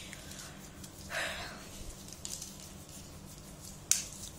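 Fingers rubbing across a palm wet with screen-cleaner spray: faint skin-on-skin friction, with one sharp click near the end.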